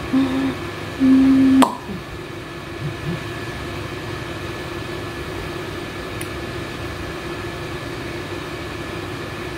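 Steady hum of a household appliance or air-conditioning unit, an even hiss with a low steady tone. Near the start come two short, flat, low hummed tones, then a sharp click just under two seconds in.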